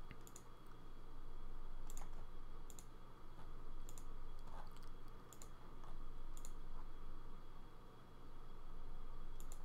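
Computer mouse button clicking: about seven single, separate clicks at uneven intervals, over a steady low hum.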